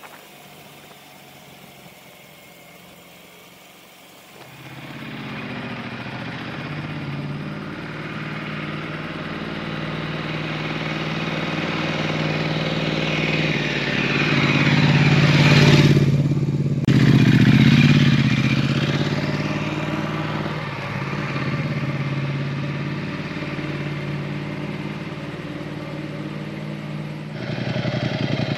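Ducati XDiavel S motorcycle's V-twin engine running under way. The engine comes in about four seconds in and grows louder to a peak, with a brief break in the note partway through, then runs on steadily.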